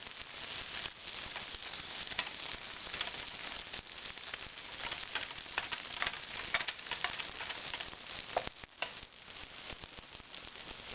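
Diced potatoes, Spam, green onions and peppers frying in a non-stick skillet: a steady sizzle full of small crackles, with clicks and scrapes of a utensil stirring the food in the pan.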